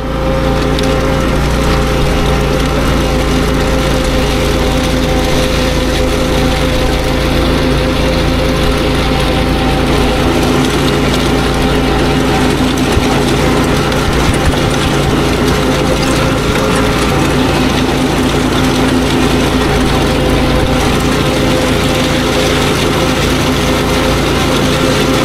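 Zero-turn mower engine running steadily at an unchanging pitch while the mower drives a dethatcher attachment across the lawn, heard up close from the machine.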